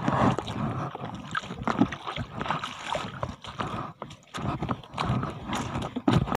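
Footsteps wading through shallow seawater: irregular splashes and sloshes with scattered small knocks, at an uneven walking pace.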